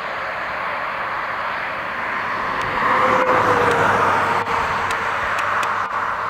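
Boeing 737-400 jet, its CFM56 engines rushing as it passes on landing, swelling to its loudest about three seconds in, with an engine whine that drops in pitch as it goes by.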